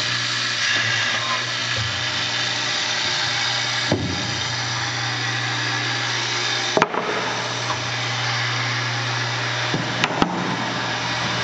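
CNC hinge boring and insertion machine running, its boring head whirring over a steady hum. Sharp knocks come about four seconds in, near seven seconds, and twice in quick succession near ten seconds.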